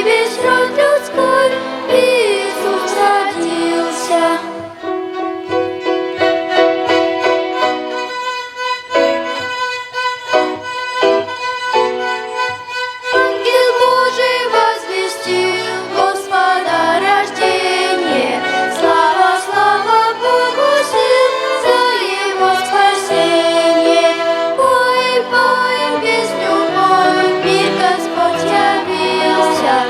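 Children's violin ensemble playing a Christmas song, with sustained and wavering bowed notes over an accompaniment.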